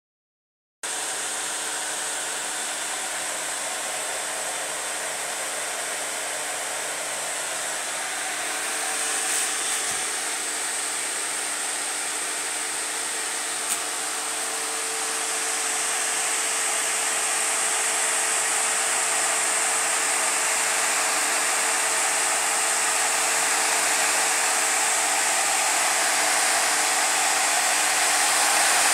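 Cooling fans of a six-card ATI Radeon HD 5870 mining rig running flat out under full load: a loud, even whoosh with a faint steady hum in it, growing louder in the second half as the cards are neared. A single small click about halfway.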